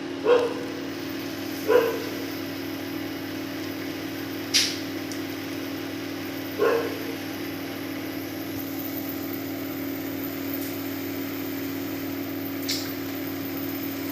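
A dog barking three times, short single barks, over a steady hum. Two sharp clicks come in between.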